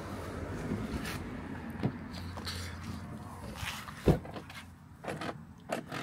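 Car door being opened: a single sharp thump of the latch and door about four seconds in, followed by a couple of lighter clicks, over a steady low hum.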